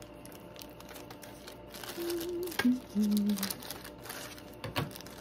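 Thin plastic packaging and a small plastic bag crinkling and clicking as they are handled and opened. About two seconds in, a voice hums a few short, steady notes.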